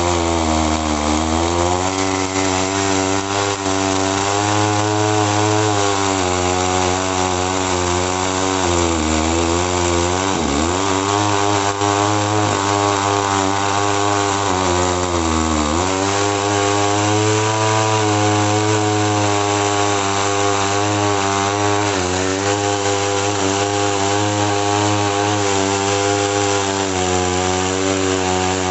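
Two-stroke chainsaw running at high revs while cutting eucalyptus logs into firewood; its pitch sags several times as the chain bites into the wood, most deeply about ten seconds in and again around fifteen seconds, then climbs back.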